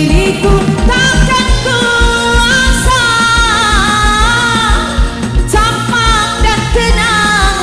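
Music: a wavering lead melody over a steady bass drum beat.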